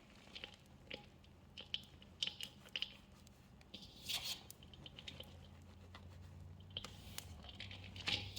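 Hands squeezing and crumbling small pieces of wet gym chalk mixed with soap, making soft, irregular squishes and crunches, with a few louder ones about two, four and eight seconds in.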